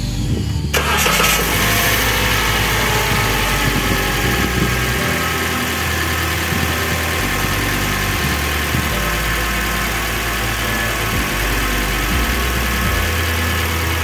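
Toyota Rush engine starting about a second in, then idling steadily.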